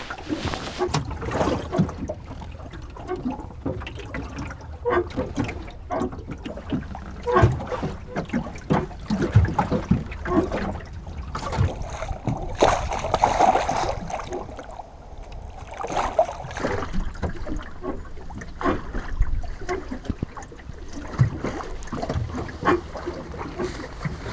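Water lapping and slapping against the hull of a small wooden boat at anchor, with irregular small knocks and splashes and a fuller wash of water about halfway through.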